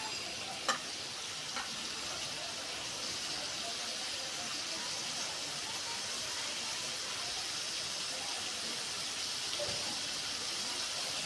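Liver frying with a steady sizzle, with a sharp click about a second in.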